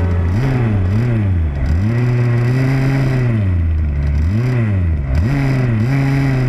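Two-stroke 25cc petrol engine of a ROVAN Baja RC buggy, heard close up from on board, revving up and down several times as the throttle is worked while driving, held high for about a second and a half in the middle.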